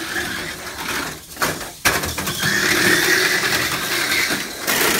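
Tamiya Mini 4WD cars running on a plastic race track: the small electric motors and gears give a steady whine that swells in the second half. There is a sharp plastic clack about two seconds in, and a brief rattling burst near the end.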